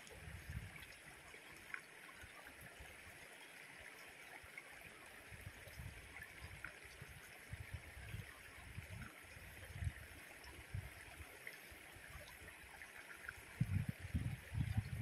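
Faint, steady rushing of a shallow river flowing over rocks. A few soft low thumps come through, thickening into a louder low rumble near the end.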